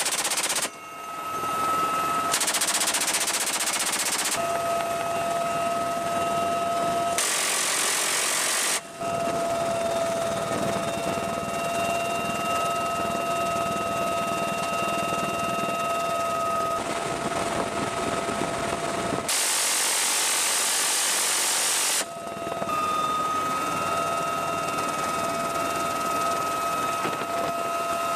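Inside a UH-1Y Venom helicopter's open cabin: a steady whine over a rush of air, broken about four times by short stretches of sustained machine-gun fire from the door guns, each lasting about two seconds.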